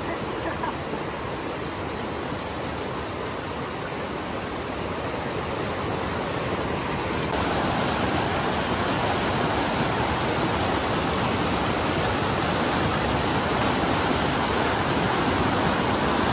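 Mountain river rushing over boulders and rapids, a steady roar of whitewater that gets louder about seven seconds in.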